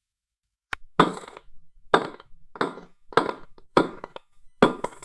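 Banging on a wall: about seven heavy knocks, roughly one every half-second to second, beginning after a short silence, each with a brief ringing tail.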